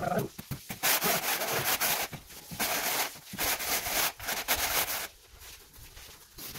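Repeated scraping strokes as a straightedge and gloved hands work a crumbly sand-and-cement mortar bed level for tiling. The scraping stops about five seconds in.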